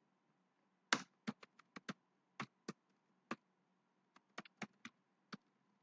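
Typing on a computer keyboard: about fifteen short key clicks in quick, irregular runs, starting about a second in.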